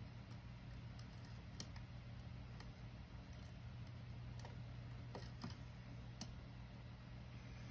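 Faint, irregular small metallic clicks of a pick and tension wrench working the pins of a Mul-T-Lock Junior lock held in a vise, over a steady low hum.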